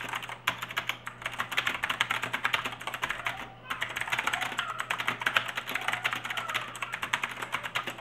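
Continuous typing on an AULA Wings of Liberty mechanical keyboard with blue switches: a dense run of keystroke clicks with a brief pause about three and a half seconds in. The sound is satisfying, but not too loud.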